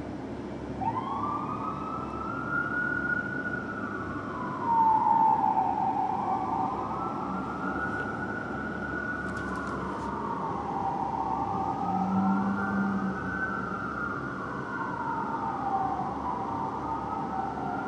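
Electronic emergency-vehicle sirens in a slow wail, each rising and falling over a few seconds. From about ten seconds in, a second siren wails out of step with the first.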